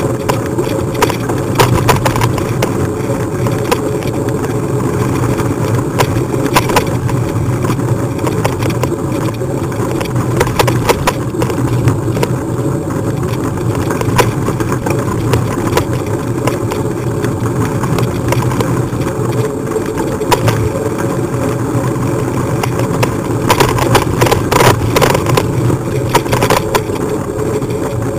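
Steady rumble and rattle of a bike riding along a lane, with many short sharp clicks throughout; it gets a little louder near the end.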